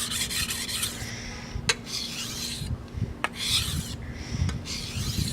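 Knife blade being stroked across a Naniwa Chosera 400 grit whetstone: a gritty rasp in about five strokes with short pauses between them. Two sharp clicks fall between strokes.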